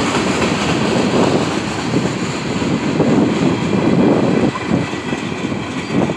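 Norfolk Southern and CSX diesel freight locomotives passing close by: a steady engine drone mixed with wheel and rail noise, easing slightly after about four and a half seconds as the tank cars follow.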